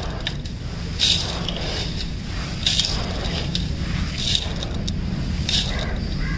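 Dry, gritty sand being scooped by hand and poured through the fingers into a steel basin: a continuous grainy hiss and rattle of falling grains, with about four louder rushes as handfuls drop, over a steady low rumble.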